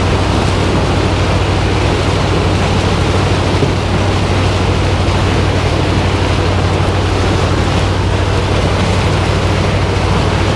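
Farm machinery engine running steadily at a constant speed close by, a loud, even drone with a low hum throughout.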